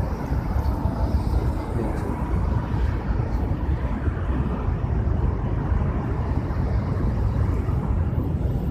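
Steady low rumble of road traffic with no distinct single event.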